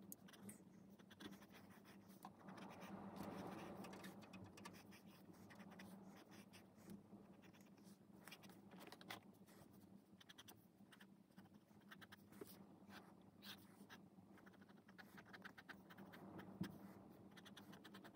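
Faint scratching of a pencil on sketchbook paper as lines are drawn, in many short strokes.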